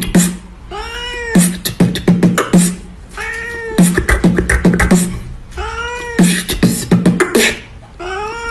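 Cat meowing in time with beatbox-style percussion: a short arched meow about every two and a half seconds, each followed by a quick run of clicks and thumps in a steady repeating beat.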